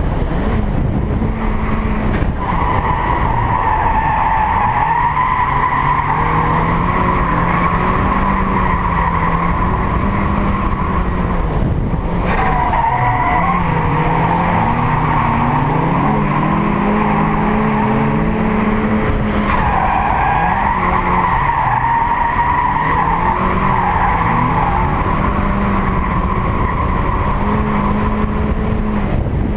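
Turbocharged Mazda Miata (T25 turbo, about 200 wheel horsepower) drifting. The four-cylinder engine revs up and down while the tyres squeal in long stretches, with a couple of short breaks.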